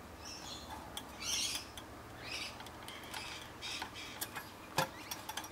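Faint, short bird calls, several of them, with a few sharp clicks in between and a low steady hum that stops about three and a half seconds in.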